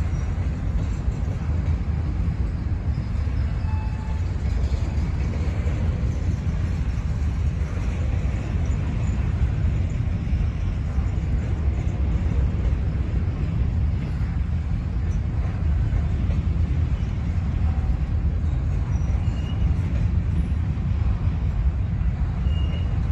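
Covered hopper cars of a CSX grain train rolling past, a steady low rumble of steel wheels on rail.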